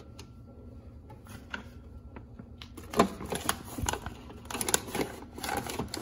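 Food packages, jars and bottles being set down and shuffled on refrigerator shelves: a few faint ticks at first, then a busy run of sharp clicks and knocks from about halfway through.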